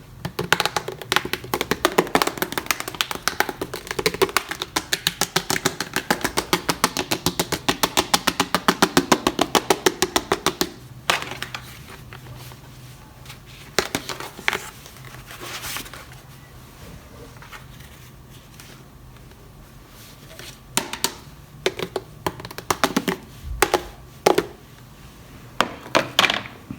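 Rapid, even clicking, about six clicks a second, for roughly the first ten seconds, which then stops abruptly. After that come scattered single taps and clicks of toys being handled.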